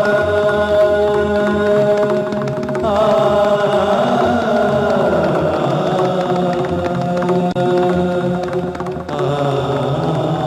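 Indian devotional music with chanting over a steady held drone.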